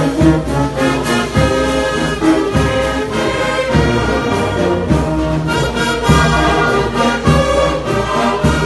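Church brass band playing, with trombones and trumpets carrying sustained chords over a steady drum beat of about one hit a second.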